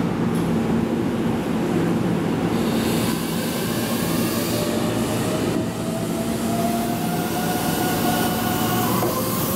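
Keihan 7000 series electric train pulling slowly into a station platform: a steady low hum, joined about halfway in by a high whine that rises gently as the train comes in.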